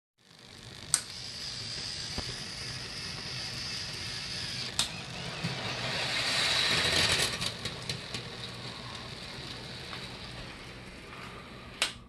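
Small electric motors of a working model wooden roller coaster running with a steady whir that grows louder around six to seven seconds in. Sharp clicks come about a second in, near five seconds, and just before the end.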